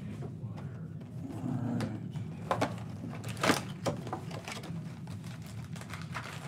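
Plastic-wrapped trading card packs sliding out of a cardboard box and being set down: rustling and crinkling, with a few sharp handling clicks about two and a half and three and a half seconds in, over a steady low hum.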